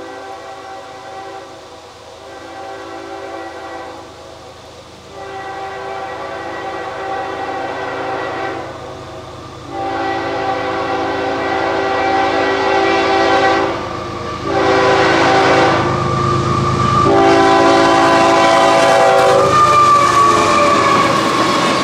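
CSX freight locomotive's multi-note air horn sounding six long blasts with short gaps as the train approaches. After the last blast, engine and wheel noise of the passing train grows loud, with a metallic wheel squeal near the end.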